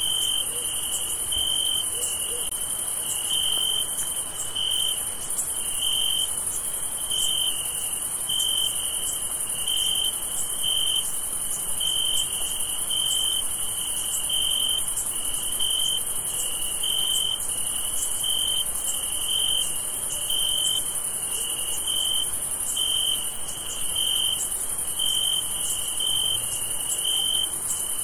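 Crickets chirping: a pulsed chirp repeating about three times every two seconds over a steady high-pitched insect trill.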